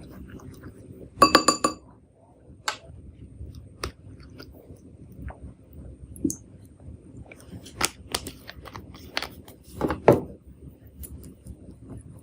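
A utensil clinks against a bowl about a second in, ringing briefly, then scattered light taps and clicks follow as slime ingredients are mixed.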